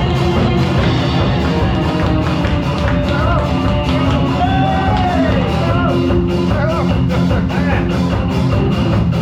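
Rock-style background music with singing and a steady drum beat.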